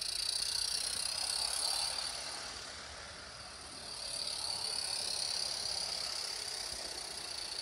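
Garden-scale model train running along the track close by: a steady hiss of wheels on rails that dips briefly around the middle and comes back as the train passes near again.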